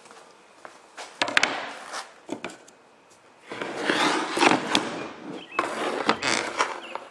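Handling noise of wood on wood and glass. A few sharp knocks, then stretches of scraping and rubbing, as a wooden strip is set down and slid into place across a window pane lying on a plywood bench.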